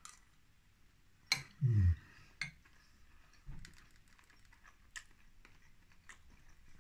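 Eating sounds: a fork or spoon clicking and tapping lightly a few times, and a short low "mm" from the eater about a second and a half in.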